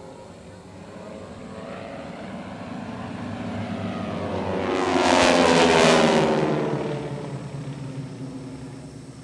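A formation of North American T-6 Texans with Pratt & Whitney R-1340 radial engines makes a flyby. The engine drone builds, peaks about five to six seconds in, then falls away with its pitch dropping as the planes pass.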